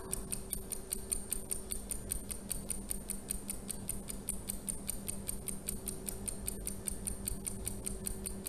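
Countdown-timer sound effect of a clock ticking quickly and evenly, about four to five ticks a second, over a faint steady hum.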